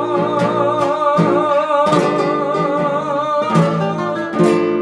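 Two acoustic guitars strumming the closing bars of a zamba under a man's voice holding the final sung note with vibrato. A last strummed chord about four and a half seconds in rings out.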